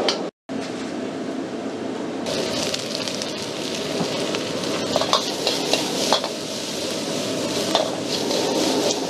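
Sliced onion and spring onions sizzling in a wok over a high-flame gas burner, a steady dense frying rush, louder and brighter after about two seconds. Sharp metal clinks of the wok and its utensils come every second or so in the second half as the wok is tossed.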